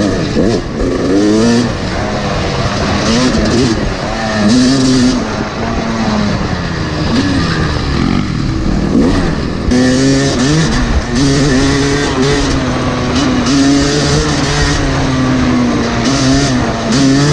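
Yamaha YZ250 two-stroke dirt bike engine under hard riding. Its pitch climbs and drops again and again as the throttle is worked and gears change.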